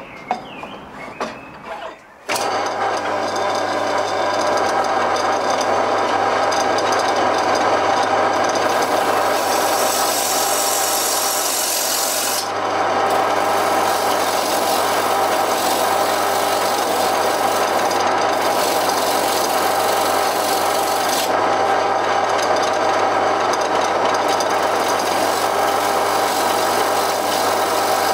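A few knocks, then a wood lathe starts about two seconds in and runs with a steady motor hum, while a hand-held turning tool scrapes across the face of the spinning wooden disc with a continuous rasping hiss. The hiss is harsher for a few seconds in the middle.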